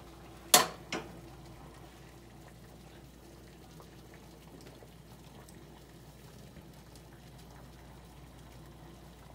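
Two sharp knocks in the first second, the first louder, then faint, steady kitchen background noise with a low hum.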